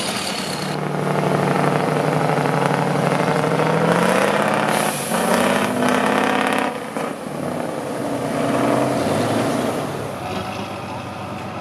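Heavy off-road trial truck's diesel engine working under load, its revs climbing between about four and six seconds in, dropping near seven seconds, then rising again briefly.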